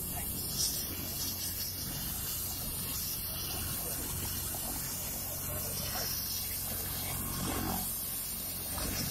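Murmur of an outdoor crowd over a steady low hum and hiss.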